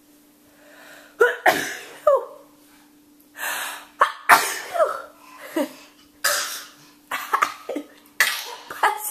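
A run of sneezes and coughs, interspersed with snuffly breaths, starting about a second in and coming in quick succession, from someone with the sniffles of a head cold.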